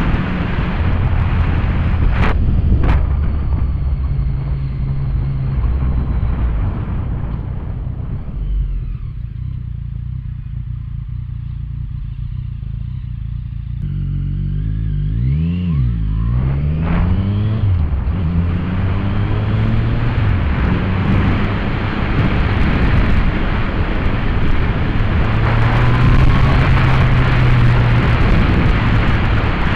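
Yamaha FZ-09's three-cylinder engine running under way, with heavy wind noise over the microphone. Partway through it drops to a quieter idle at a stop, then the engine note rises and falls through the gears as the bike pulls away and the wind noise builds again.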